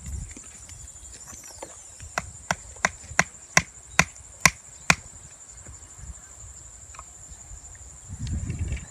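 Eight sharp knocks in quick even succession, about three a second and growing louder, over a steady high insect buzz.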